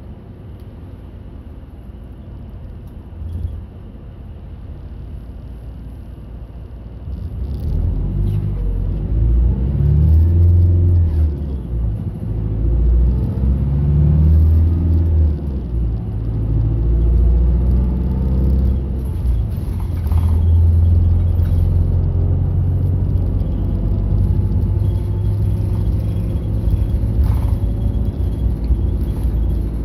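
A route bus's diesel engine and road noise heard inside the cabin. It runs quietly at first, then about seven seconds in the bus pulls away, the engine pitch rising and dropping through the gear changes, and it settles into a steady cruising drone.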